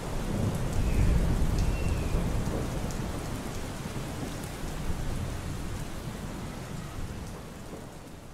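Rain with a low rolling rumble of thunder. It starts suddenly, is loudest about a second in, then slowly fades away.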